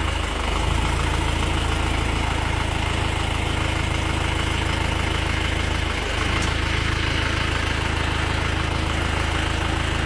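Farm tractor engine idling steadily with an even low hum. The squeak the owner reports from the clutch or brakes when reversing is not heard.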